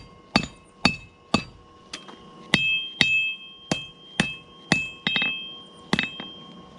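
Hand hammer striking hot spring steel on the horn of an anvil, about two blows a second, each leaving a bright metallic ring, with a short pause near the end.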